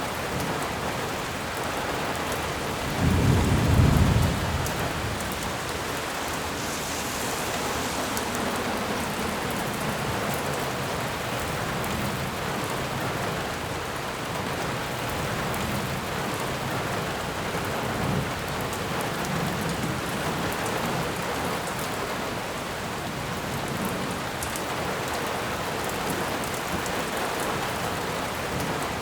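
Steady rain falling in a forest. A low rumble of thunder comes about three seconds in and is the loudest sound, with fainter low rumbles several times later.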